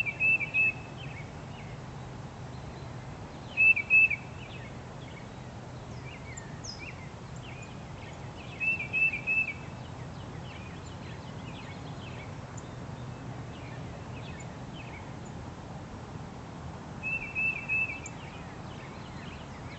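A person whistling a bird call: four short phrases of three or four quick high notes each, a few seconds apart. Faint chirps of small songbirds and a steady low rumble run underneath.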